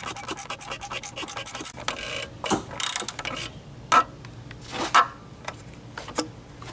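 Ratcheting socket wrench clicking as the plastic cartridge oil filter cap is snugged down. A rapid run of clicks lasts about two seconds, then a few single sharper clicks follow, with the socket rubbing on the cap.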